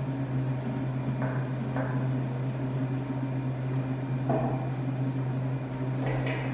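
Steady electric machine hum in a small dairy processing room during milk bottling, with a few light clinks, likely of glass milk bottles, about a second in, near the middle and near the end.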